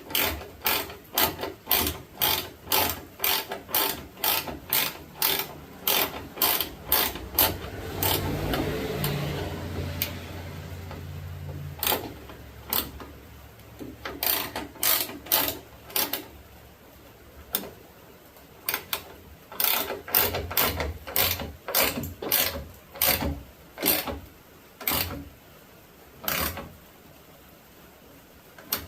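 Hand ratchet clicking in a steady rhythm, about two or three clicks a second, as a bolt on a tailgate strut bracket is tightened. A steadier rubbing noise comes about eight seconds in, then the ratchet clicks on in shorter runs.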